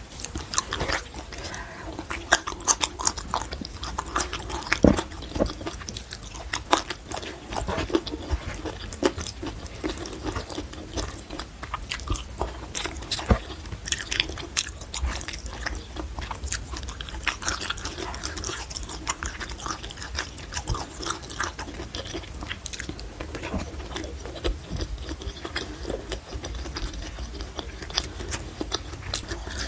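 Close-miked chewing and mouth sounds of a person eating rice, curried egg and petai beans by hand, with frequent small crunches, wet smacks and clicks.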